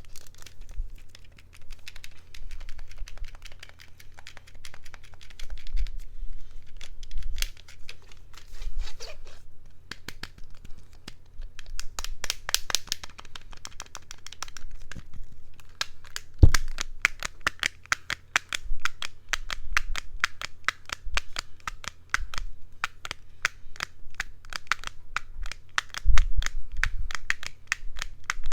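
Crinkling and crackling of a handled object, an ASMR trigger: scattered crackles at first, then a dense run of rapid crackles from about halfway through.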